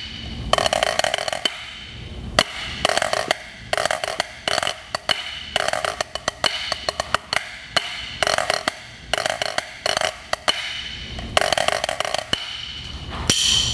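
Wooden drumsticks playing a 3/4 massed band snare part on a drum practice pad: dry, rhythmic strokes in quick groups with rapid rolls.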